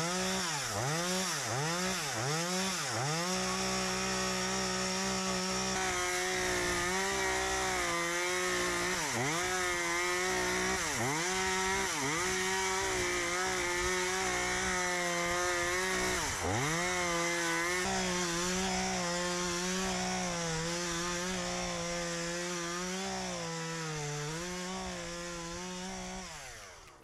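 Two-stroke chainsaw blipped rapidly several times, then held at full throttle while cutting through a log. The revs sag briefly a few times under load, and the saw comes off the cut near the end.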